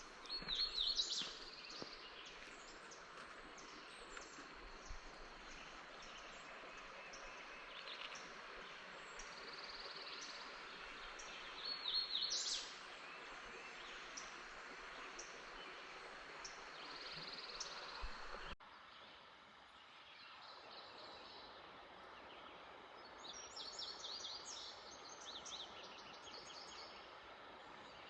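Wild songbirds singing short, high chirps and trills over a steady outdoor hiss. The background hiss drops abruptly about two-thirds of the way through.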